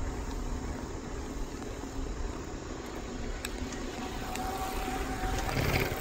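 Steady wind rumble buffeting the microphone while moving along the path. A faint thin tone comes in about two-thirds of the way through, and there is a short louder swell just before the end as other cyclists come close.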